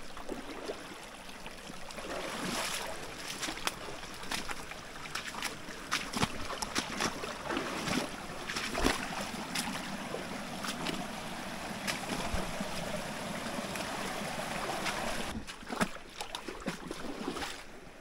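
Wading through a creek in waders: water sloshing and splashing with each step, with many short sharp splashes and snaps, easing off near the end.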